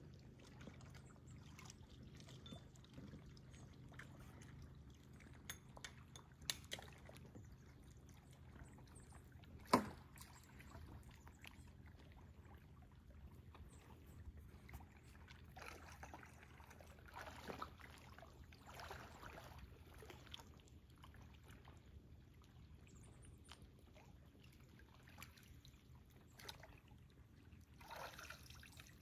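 Faint water lapping and trickling, with a low hum under the first half, scattered light knocks, and one sharp knock about ten seconds in.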